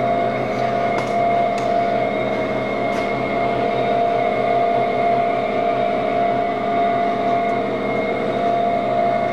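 Fortuna dough divider rounder running: a steady electric machine hum with a constant mid-pitched whine, unchanging throughout, with a couple of faint ticks.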